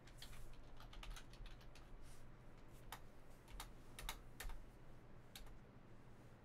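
Faint typing on a computer keyboard: irregular key clicks, some louder than others.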